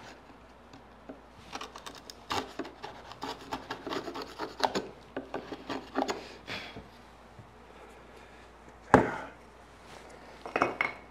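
Hand chisel paring wood, a quick run of short scraping strokes as it cleans the bottoms of notches across a clamped row of wooden muntins. A single loud wooden knock comes about nine seconds in, and a light clatter follows near the end.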